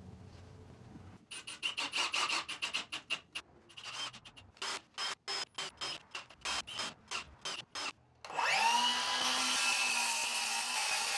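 Rapid back-and-forth rubbing strokes on wood, about four or five a second, for several seconds. About eight seconds in, a power tool's motor starts, quickly rises in pitch and settles into a steady whine.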